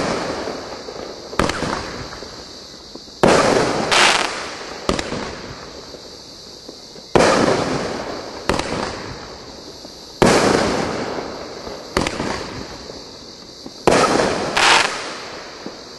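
Consumer fireworks cake firing aerial shots one after another, about ten in all. Each is a sharp bang that fades away over a second or two, coming roughly every one to three seconds.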